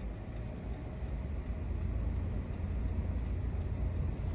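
Steady low rumble of a vehicle engine idling, a little stronger about a second in.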